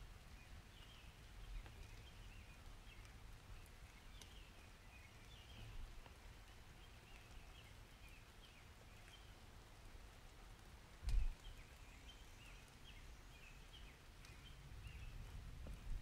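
Faint summer-rain ambience: a soft steady hiss over a low rumble, with continuous small high chirping calls throughout. A brief low thump comes about eleven seconds in.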